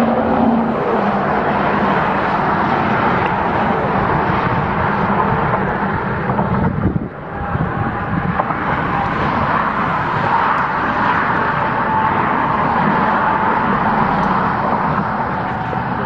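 Loud steady rushing noise with a faint steady tone running through it, dipping briefly about seven seconds in.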